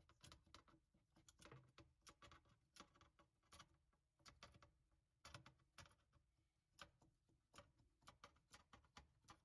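Faint, irregular clicks and short scrapes of a metal scraper blade, clamped in locking pliers, working along a freshly printed PLA chain to pry it off a glass build plate.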